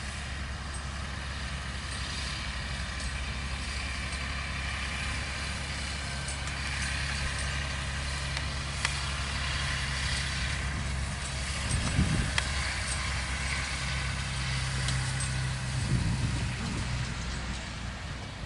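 Massey Ferguson tractor's diesel engine running steadily as it tows a sand spreader across the field, a low hum with a steady hiss above it. The sound swells briefly twice in the second half and eases off near the end as the tractor moves away.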